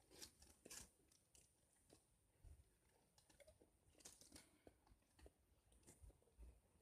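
Faint crunching and chewing of biscuits, heard as scattered soft crackles and clicks.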